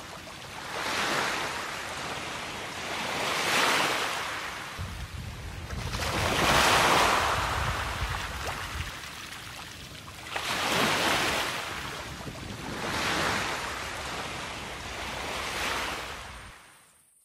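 Ocean surf washing in and out, in about six swells a few seconds apart, fading out near the end.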